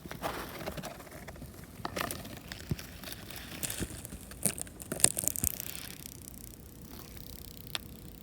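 Footsteps crunching and crackling through dry forest litter of twigs and leaves, in irregular steps that thin out after about six seconds.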